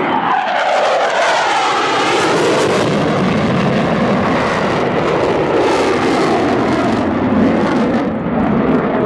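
Eurofighter Typhoon jet making a fast pass, its pitch dropping sharply in the first second as it goes by, then a loud steady jet rumble as it climbs away with afterburners lit.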